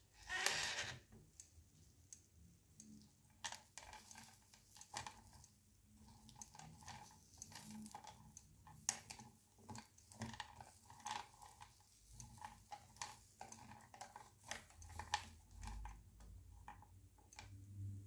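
Wooden skewer poking and scraping through melted candy-coated chocolates on a waffle iron's nonstick plate: irregular small clicks, crackles and sticky squishes. A short rush of noise about half a second in, as the waffle iron lid is opened.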